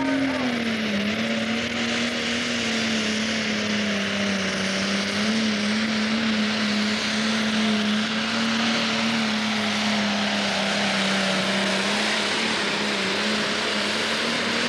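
Pro Stock pulling tractor's turbocharged diesel engine at full throttle, dragging the weight-transfer sled down the track. The revs flare at the launch, then settle under the load and hold a steady pitch all the way to a full pull.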